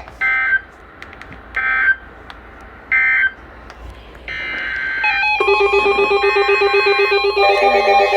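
Three short Emergency Alert System SAME data bursts about a second apart, the two-tone end-of-message code that closes a broadcast flash flood warning. From about five seconds in, a bright synthesizer tune starts.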